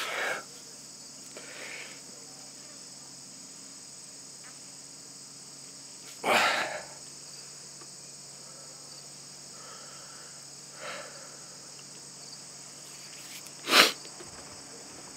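Steady chorus of crickets chirping. A few short, sharp noises break over it, the loudest two about six seconds in and near the end.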